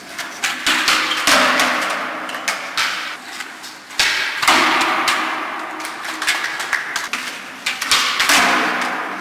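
Skateboard wheels rolling on smooth concrete, with the sharp snaps of tails popping and boards landing, echoing off the walls of an underground car park. The sound jumps abruptly about four seconds in as another attempt begins.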